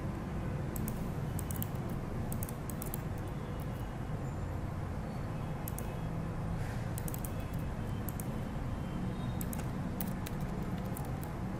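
Computer keyboard typing in several short, irregular runs of key clicks, over a steady low hum.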